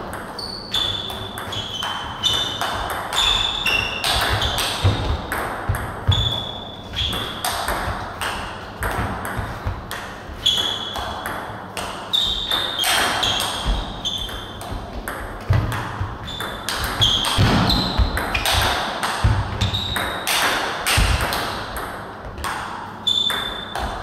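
Table tennis rally: the ball clicking back and forth off the bats and the table in quick, irregular succession, with short high-pitched squeaks and low thuds mixed in.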